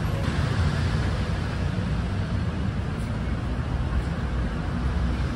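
Steady low rumble of city background noise, with faint voices of people nearby.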